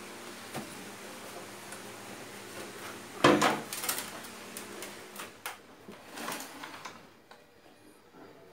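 Hard plastic clattering and knocking as a CRT TV's main circuit board chassis is handled and slid out of its cabinet. A loud knock comes about three seconds in, followed by smaller knocks and rattles. A low steady hum underneath fades out near the end.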